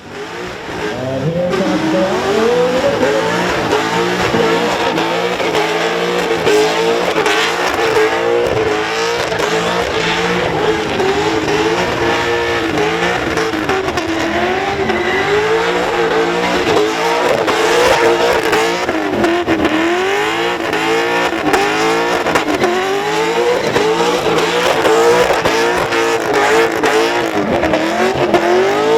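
Holden Commodore burnout car's engine held at high revs, its pitch swinging up and down steadily as the throttle is worked, with tyre squeal over it.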